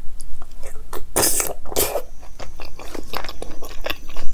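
Close-miked chewing of a spoonful of Afghani paneer in creamy gravy: a run of wet mouth clicks and smacks, with two short, louder rushes of noise a second or so in.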